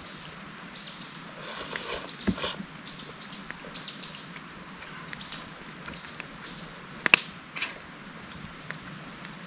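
Small birds calling: runs of short, high chirps, each sliding down in pitch, repeated many times. A sharp click, the loudest sound, comes about seven seconds in, with a fainter one a little after two seconds.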